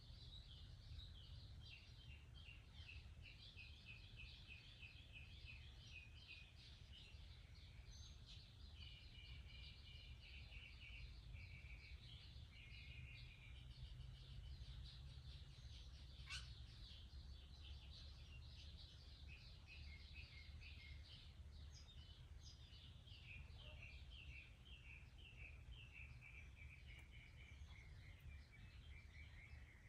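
Faint birdsong: small birds chirping and trilling in quick runs of notes, over a low steady rumble, with a single sharp click about halfway through.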